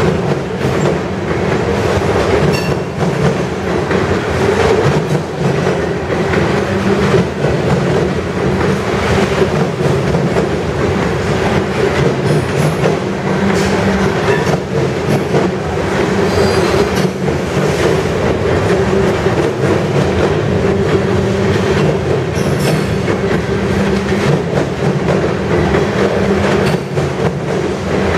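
Covered hopper cars of a freight grain train rolling steadily past close by: a continuous rumble of steel wheels on rail, with repeated clicks as the wheels cross rail joints.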